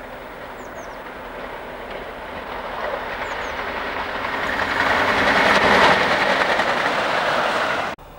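A convoy of several coupled diesel locomotives approaching and running past on the main line, engines and wheels on the rails growing louder to a peak about two-thirds of the way through. The sound cuts off suddenly near the end.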